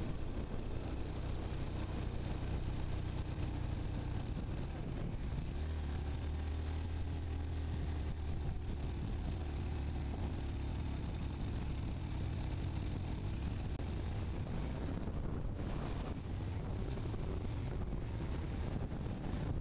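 A vehicle's engine running steadily while driving along a paved road, with a continuous rush of wind and road noise over it.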